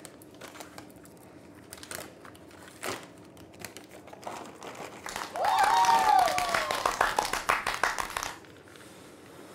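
Crinkling with many small clicks, faint at first and loudest for about three seconds from around five seconds in, with a short squeak that rises and falls.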